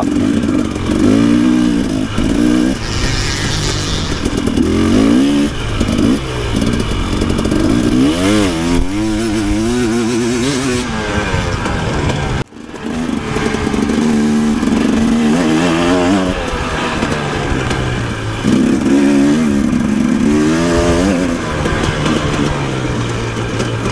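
Off-road dirt bike engine being ridden hard along a trail, its revs rising and falling constantly with throttle and gear changes, with some clatter. The sound breaks off abruptly for a moment about halfway through.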